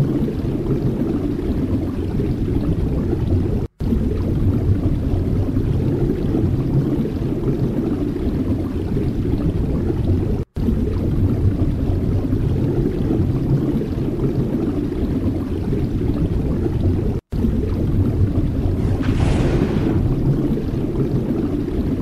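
Wind buffeting the microphone: a steady low rumble, with a brighter gust of hissing air swelling near the end. The sound cuts out briefly three times.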